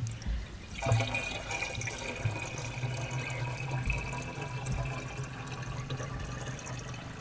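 Water poured from a cut-down plastic bottle into the priming opening of a petrol-engine water pump, the stream running down into the pump casing; after a short lull it picks up again about a second in. The pump is being primed with water so that it can draw water from the ground once started.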